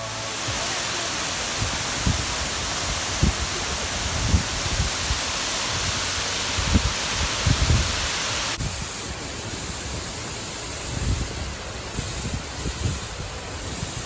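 Steady rushing of a waterfall, with wind buffeting the microphone in irregular low thumps. A little past halfway the rush drops slightly and sounds duller.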